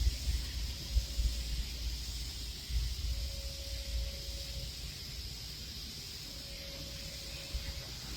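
Steady high chirring of crickets, with an uneven low rumble of wind on the microphone. Two faint held tones, each about a second and a half long, sound a few seconds apart.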